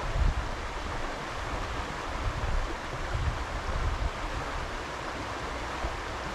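Fast, shallow river water rushing steadily over riffles, with wind buffeting the microphone in irregular low gusts.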